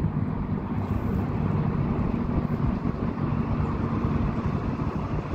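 Steady low rumble of an approaching freight train's diesel locomotives.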